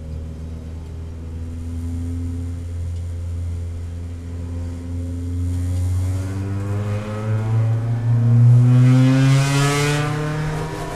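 Mazda Miata race car's four-cylinder engine heard from inside the cockpit, running at low revs at slow rolling speed, then rising steadily in pitch as it accelerates from about six seconds in, loudest around eight to ten seconds in.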